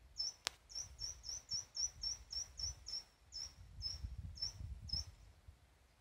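A string of short, high chirps, about four a second at first, then slowing to about two a second and stopping about five seconds in, with one sharp click about half a second in, over a faint low rumble.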